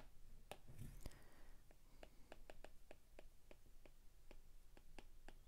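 Faint, quick taps of a stylus on an iPad's glass screen during handwriting, sparse at first and then a few a second.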